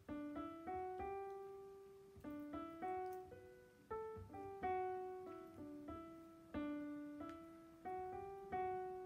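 Background music: a slow piano melody of single notes, each struck and left to fade, about two a second.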